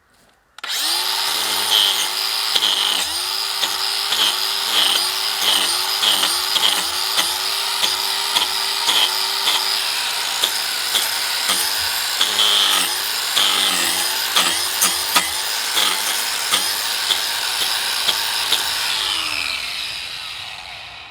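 DeWalt 18V XR cordless angle grinder with a wood carving disc, cutting bark and wood off a log. It starts about half a second in and runs loud and steady, its motor pitch dipping again and again as the disc bites into the wood, then winds down near the end with a falling whine.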